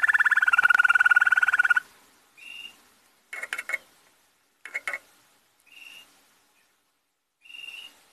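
Male rosefinch × canary mule singing: a fast rolling trill for about the first two seconds, then short scattered notes and chips with pauses between them.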